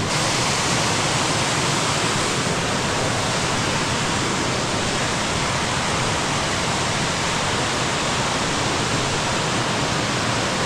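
Little Clifty Falls, a waterfall, rushing loudly and steadily: an even wash of falling water with no break or change.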